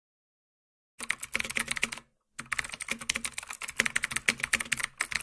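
Rapid clicking of typing on a computer keyboard, starting about a second in, breaking off briefly near the two-second mark, then carrying on.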